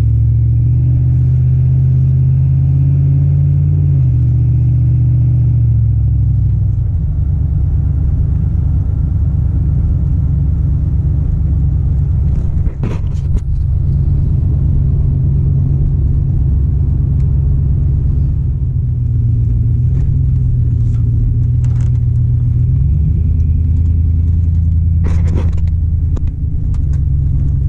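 Swapped 5.3-litre LS V8 in a 1990s Chevrolet OBS pickup, with no catalytic converters and a temporary Y-pipe and muffler, heard from inside the cab while driving: a steady low engine drone. The note shifts about five seconds in and settles lower near the end as the truck slows.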